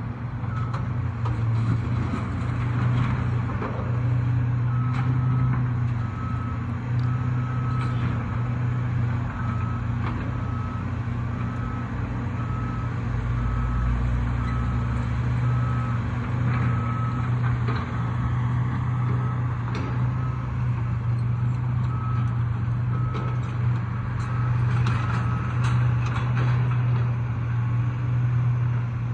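Diesel engine of a demolition excavator running steadily, with scattered knocks and crunches of debris. A backup alarm beeps about once a second from about five seconds in until near the end.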